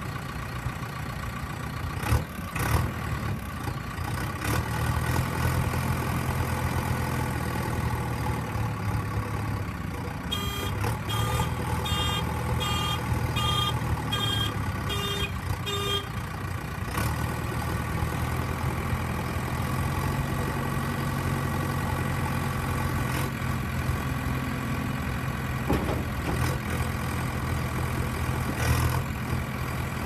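JCB 3DX backhoe loader's diesel engine running steadily, with its reversing alarm beeping about eight times, roughly once every 0.7 s, for several seconds in the middle.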